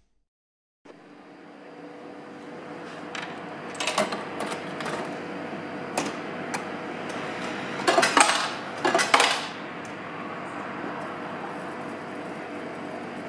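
Showa-era noodle vending machine running while it cooks a bowl of tempura noodles: a steady hum with scattered clicks, and two louder rattles about eight and nine seconds in.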